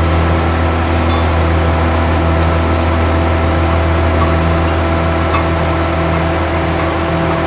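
Steady low machine hum from a running motor, even and unchanging, with a few faint clicks.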